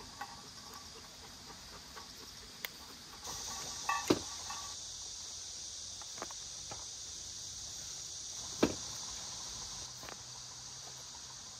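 Steady high chirring of summer insects, which grows louder about three seconds in, with a few sharp clicks and knocks, the loudest about four and eight and a half seconds in.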